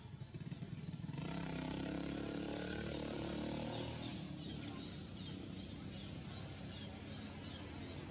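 A motor engine running, louder from about a second in until about four seconds in, then steadier. Faint high chirps repeat about twice a second over the second half.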